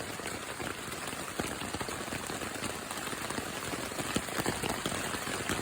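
Steady rain falling on a camping tarp overhead, many separate drops ticking against a constant hiss.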